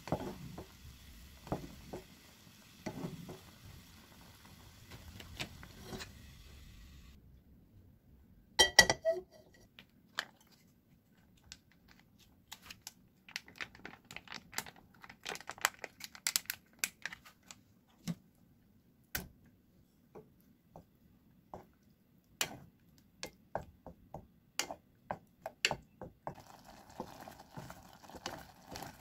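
A spatula stirring gnocchi in a pot of boiling water, with a few knocks against the pot. About nine seconds in comes a loud clatter, then a long run of sharp taps and knocks on the pot. Near the end, gnocchi are stirred in a bubbling cream sauce.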